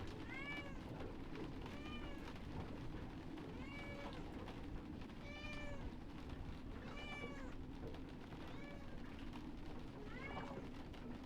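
Kitten meowing over and over: about seven short meows, each rising and falling in pitch, roughly every second and a half.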